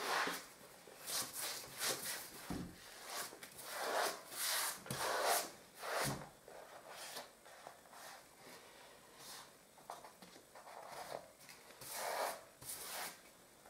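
Paper-hanging brush sweeping pasted lining paper onto a wall: irregular short brushing swishes, with the paper rustling, sparser and fainter in the middle.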